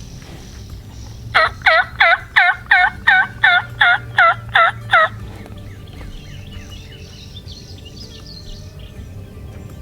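Turkey call sounding a run of about eleven quick yelps, roughly three a second, as a hunter's calling to draw a gobble. Faint songbirds can be heard after it.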